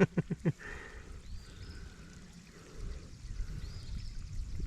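Waterfall water running steadily into a pool. In the first half-second comes a quick run of short voiced pulses, like a brief laugh, and a few faint high chirps sound over the water.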